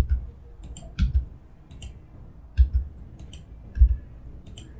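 Computer mouse and keyboard clicks while extruding path points in Blender: short click pairs, about four of them roughly a second apart.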